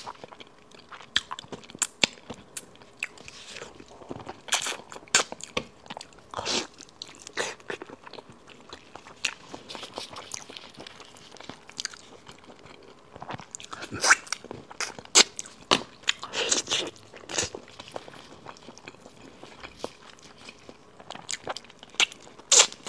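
Close-miked chewing and biting of braised pig's trotter: wet, sticky mouth sounds with irregular sharp smacks and clicks as the skin and tendon are chewed, busiest about two-thirds through.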